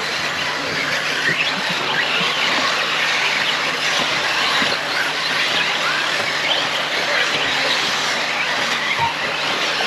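A pack of brushless electric RC off-road cars racing, their motor whines rising and falling in many short, overlapping glides.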